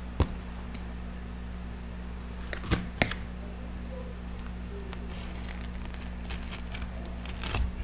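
A walleye and a fillet knife handled on a stone countertop: a few short knocks and taps as the fish is set down and the knife starts into it. The taps come once near the start, twice about three seconds in and once near the end, over a steady low hum.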